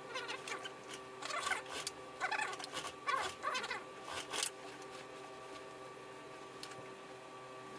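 Suit-jacket wool fabric rustling in short irregular bursts as it is gathered and pushed under the sewing machine's presser foot, stopping about halfway through, over a faint steady hum.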